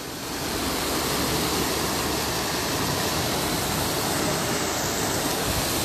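Muddy floodwater from the Surma River rushing through a breach in the dike: a steady, loud rushing of fast-flowing water that builds slightly in the first half second.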